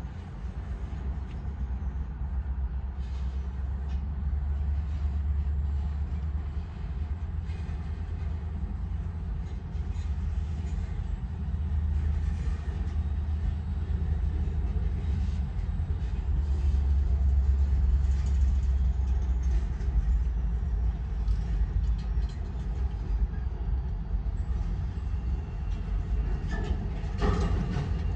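Diesel-electric switcher locomotive running in a rail yard while switching cars: a steady low engine rumble that swells and eases, with a few short knocks, the clearest near the end.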